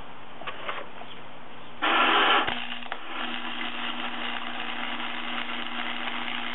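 Electric arc welder welding a steel axle shaft: a short louder burst of arc about two seconds in, ending with a click, then a steady crackling hiss of the arc over a low electrical hum as a bead is run.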